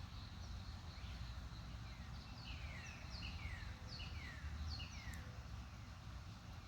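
Birds calling: a quick series of short, downward-sliding chirps at several pitches, thickest from about one to five seconds in, over a faint steady high hiss and a low outdoor rumble.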